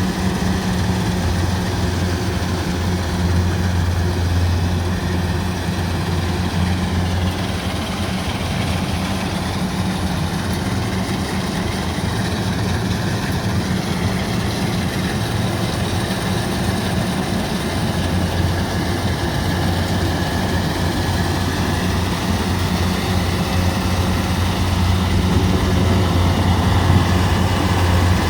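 Rice combine harvester's diesel engine and threshing machinery running steadily, a constant low drone.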